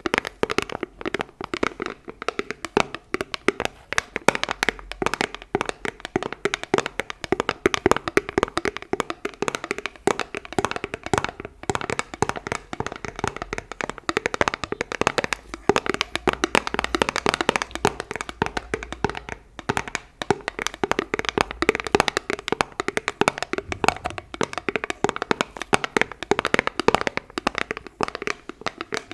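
Fast, dense fingertip tapping on an object, a continuous run of many small sharp taps every second.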